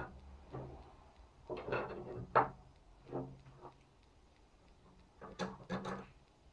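Hand-forged iron fireplace crane parts knocking and clunking against wooden boards as they are handled and fitted together, in a few short clusters of knocks. The loudest knock comes about two and a half seconds in, with another cluster near the end.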